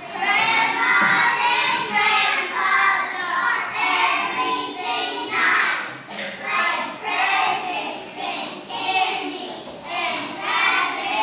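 A group of young children singing together in unison, in short phrases.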